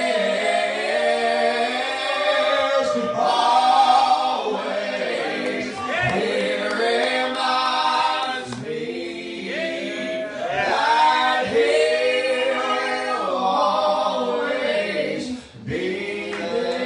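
Two men and a woman singing a gospel song in harmony into microphones, with long held notes.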